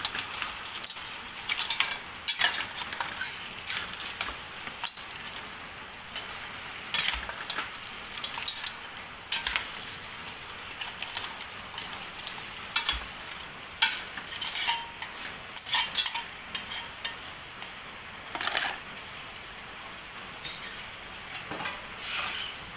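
Crab pieces sizzling in sauce in a wok while a metal spatula stirs them, with irregular scrapes and clinks of the spatula against the wok over a steady frying hiss.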